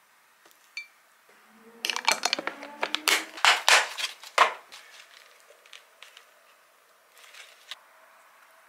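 A container of strawberries being opened and handled: a dense run of crackles and clicks about two seconds in, lasting a couple of seconds, then a few light knocks.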